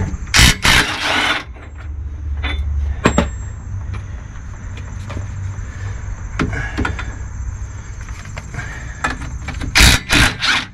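Cordless impact wrench hammering on the 24 mm brake caliper bolts, in short bursts about half a second in and again near the end, with a low steady rumble between the bursts.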